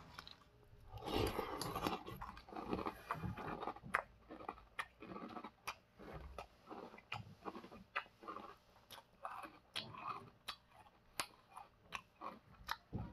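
A person chewing a mouthful of crunchy Sour Patch Kids cereal in milk, with irregular crunches and small mouth clicks.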